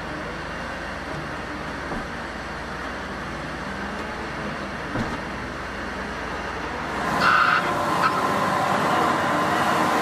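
Caterpillar wheel loader's diesel engine running steadily under load while pushing maize silage. About seven seconds in the sound changes to a machine with a steady whine and a brief high squeal.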